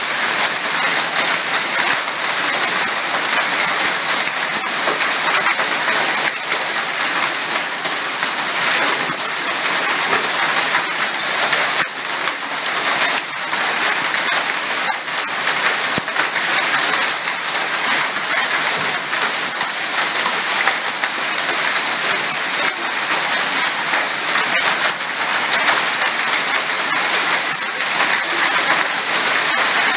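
Heavy rain falling steadily, a dense even hiss with many drops pattering on roofs and hard surfaces.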